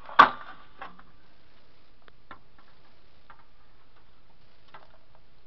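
A sharp knock of hard plastic about a quarter second in, then a few faint scattered clicks, as the black plastic casing parts of a disassembled Sony CRT television are handled.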